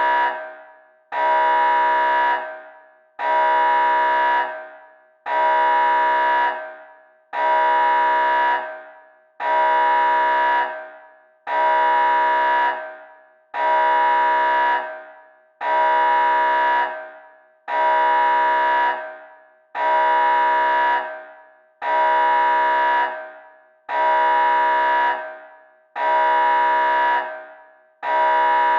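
Red-alert danger alarm sound effect: a harsh, steady-pitched alarm horn blaring in repeated blasts about every two seconds, each starting abruptly, holding for about a second and then dying away.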